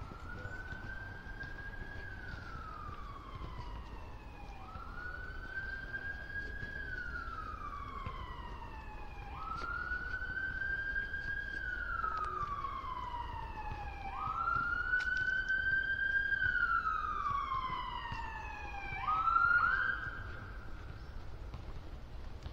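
Emergency vehicle siren sounding a slow wail: each cycle rises quickly, holds, then slides down over about five seconds. It grows louder, then near the end gives two quicker rises and stops.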